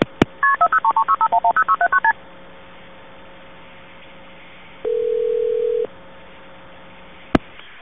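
Telephone line signalling at the start of a 911 call. A rapid run of about a dozen beeping two-tone dial digits, then a single steady ring tone lasting about a second, then a click as the line is picked up.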